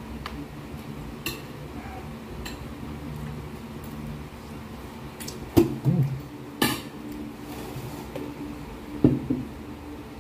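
Scattered sharp clinks and clicks of a dinner plate and crab shell as cooked crab is picked apart by hand, about five of them, the loudest a little past the middle, with a couple of brief low mouth sounds from the eater. A faint steady low hum lies underneath.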